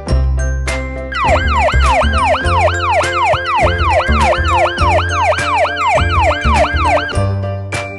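Emergency-vehicle siren sound effect: a fast, repeating falling sweep about three times a second, starting about a second in and stopping near the end. It is laid over upbeat children's background music.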